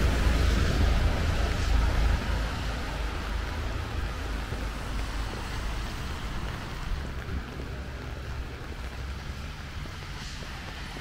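Road traffic on a wet street: a vehicle passing close at the start, its low rumble and tyre hiss fading away over several seconds, leaving a steadier, quieter wash of traffic.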